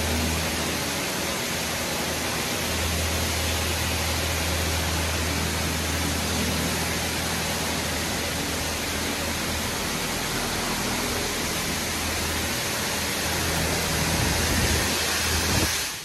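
PDQ LaserWash 4000 touchless car wash running: a steady, loud rushing noise with a low motor hum underneath, which cuts off suddenly near the end as the machine shuts off.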